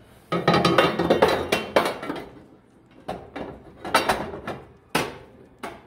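Sheet-steel heat exchanger baffles clattering and scraping against the steel firebox of a Harman pellet stove as they are fed in and seated on their ears: a dense rattle over the first two seconds, then a few separate metal knocks about a second apart.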